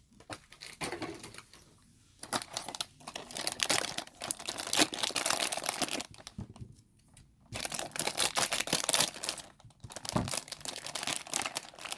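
A plastic blind-bag packet being crinkled and torn open by hand, in spells of dense crackling with short pauses between them.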